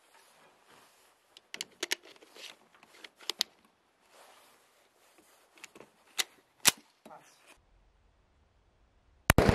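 Sharp metallic clicks from handling a Luger P08 Artillery pistol, its magazine being seated and the action worked. Near the end comes one loud 9mm pistol shot, echoing in the enclosed range.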